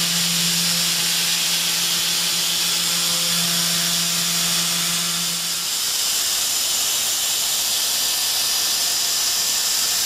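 CNC micro milling machine cutting metal with a small end mill: a steady machining hum over a constant hiss from the coolant nozzle. Just over halfway through, the hum stops and only the steady hiss goes on.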